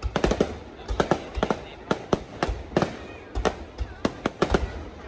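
Fireworks going off in a rapid, irregular series of sharp bangs, several a second.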